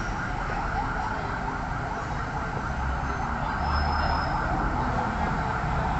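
Steady background road-traffic noise, with a low rumble of a passing vehicle swelling about three to four seconds in.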